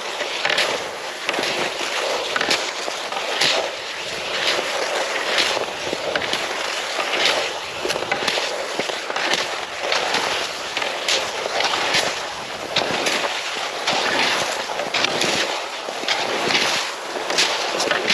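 Cross-country skis scraping and hissing over hard, icy snow, with a crunch or clack at each stride or pole plant, roughly one to two a second at an uneven pace.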